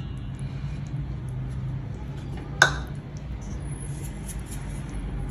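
A single sharp clink about two and a half seconds in, a utensil knocking against a stainless-steel mixing bowl, over a low steady hum.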